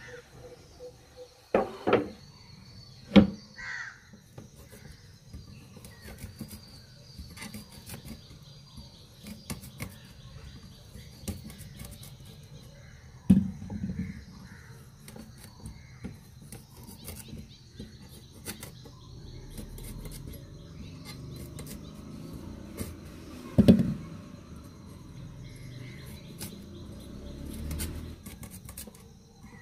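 Ambarella fruits being peeled against a curved iron blade fixed over a wooden board: faint scraping and clicking, with a few sharp knocks spread through. Crows caw in the background.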